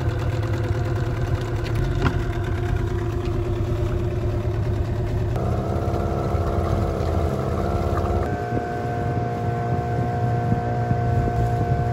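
Mariner two-stroke outboard motor running under way, pushing a small aluminium boat, with water rushing past the hull. The engine note changes abruptly twice, about five and eight seconds in.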